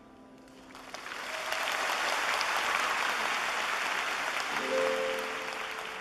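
A grand piano's last notes die away, then a large concert audience applauds. The applause swells about a second in and eases off near the end.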